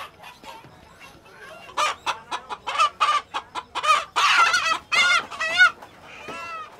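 A chicken being held by hand squawks in a rapid string of loud calls starting about two seconds in, then gives one fainter call near the end.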